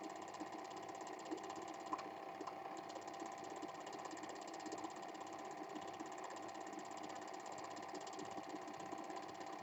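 Cine film projector running: a steady, fast mechanical clatter with a steady hum, and a few faint clicks.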